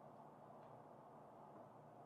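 Near silence: steady room tone with a faint low hum, and one faint click about half a second in.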